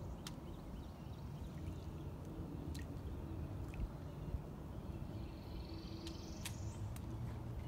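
Quiet swamp ambience over a low steady rumble, with a few sharp clicks and a bird's rising trill near the end.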